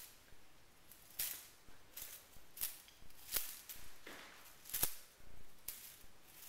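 A feather wand toy swished and batted while a kitten plays with it on a carpeted cat tree: about half a dozen short, sharp rustling swishes at irregular intervals, the loudest about three-quarters of the way through.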